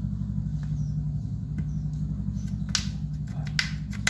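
Sharp clicks and snaps from a thin pry blade working between the back cover and frame of a Samsung Galaxy M30s, the loudest two coming about two and three quarter and three and a half seconds in. A steady low hum runs underneath.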